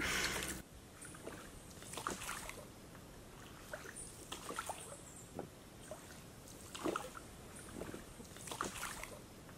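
A wooden paddle dipping into and pulling through calm water from a small dinghy, faint strokes about every two seconds, with water trickling and dripping between them.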